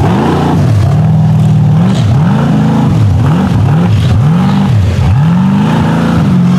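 Big-block V8 engine of a custom S-10 cab truck on Rockwell axles revving hard under load on a steep dirt climb, its pitch surging up and falling back over and over, about six times.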